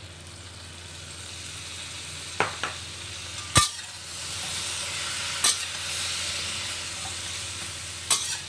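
Fried spareribs sizzling in a hot stainless steel wok with butter, garlic and freshly added soy sauce, stirred with a metal spoon that clanks sharply against the pan about six times. The sizzle swells about four seconds in.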